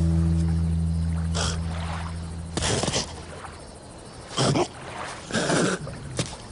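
A low held note fades away over the first two and a half seconds. Then an animated lion cub makes short vocal noises, heard as a few brief bursts about a second apart.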